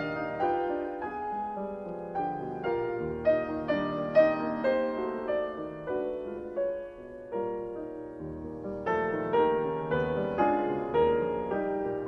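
Background classical piano music: a gentle melody of struck notes that ring and fade one after another.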